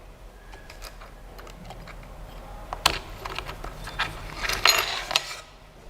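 Irregular light clicks and scraping of small hard objects being handled, with the loudest knocks about three seconds in and a cluster of clicks and rubbing just before the end.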